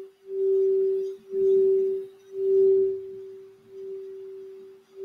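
Crystal Alchemy singing bowl tuned for the throat chakra, sung by rubbing a wand around its rim: one steady ringing tone that swells and fades about once a second, loudest in the first three seconds, with a faint rubbing of the wand underneath.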